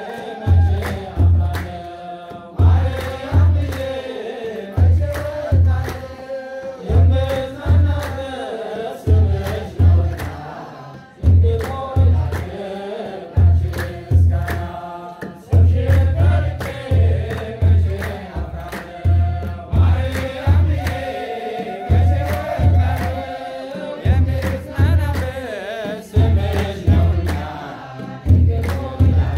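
Ethiopian Orthodox church hymn (mezmur): a kebero drum beats a steady rhythm of low beats in pairs, under a choir of voices singing together and hands clapping in time.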